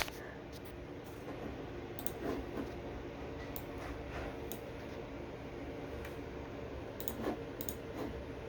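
Faint, scattered clicks and ticks over a steady low background hum.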